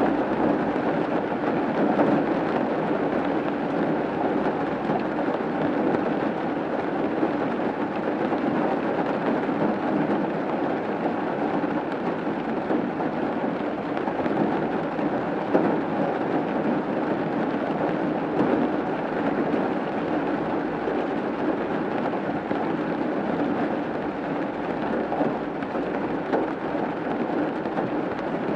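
Steady rain falling on a roof, a dense even patter with a few louder drop hits.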